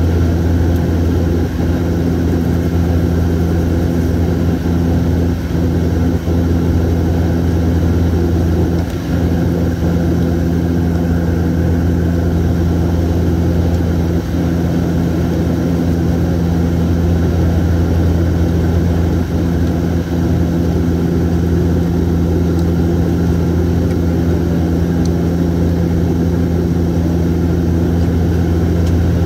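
Steady drone of a Bombardier Q400's six-bladed propellers and Pratt & Whitney PW150A turboprop engines in flight, heard inside the passenger cabin: a strong deep hum with a few steady tones above it.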